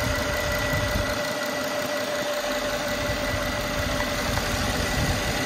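Mercedes W221's twin-turbo V6 idling steadily with the bonnet open, a constant high whine riding over the low running of the engine.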